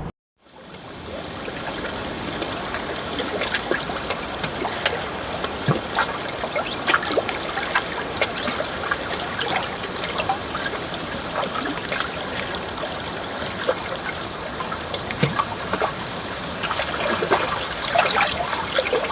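Running water trickling and splashing in a steady flow, with many small splashes throughout that grow busier near the end.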